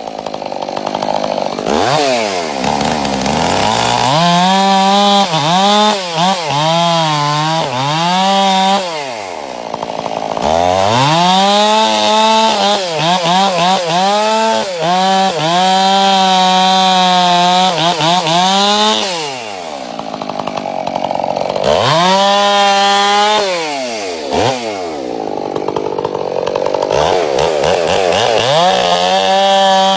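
Chainsaw running and cutting wood, revved up to high speed and dropped back toward idle about four times; while held high the pitch wavers and sags as the chain bites.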